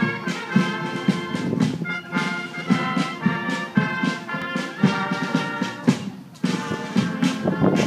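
Military brass band marching and playing a march, brass over a steady beat of about two drum strokes a second, with a short break about six seconds in.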